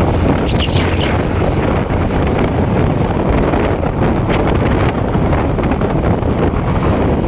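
Wind rushing over the microphone of a moving motorcycle, a steady heavy rush of noise with the bike's running noise beneath it.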